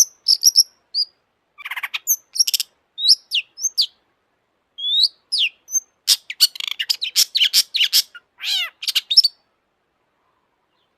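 Long-tailed shrike (cendet) singing vigorously: a varied string of sharp chirps and whistled slides, then a dense, rapid run of harsh notes that stops about nine seconds in.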